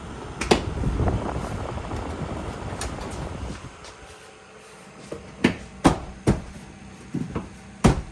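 A 3rd Gen Toyota Tacoma's plastic door trim panel being fitted back onto the door. A sharp click about half a second in is followed by rustling and scraping as the panel is handled. In the last three seconds come about six sharp snaps as its retaining clips are pressed home.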